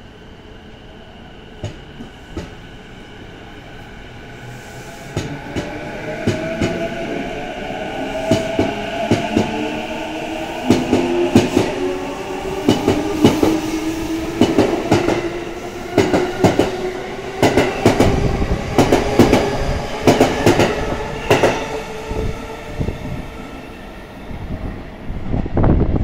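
JR East E233 series electric train accelerating away from a station platform. Its inverter-driven traction motors give a slowly rising whine, and the wheels click over the rail joints more and more often as it gathers speed.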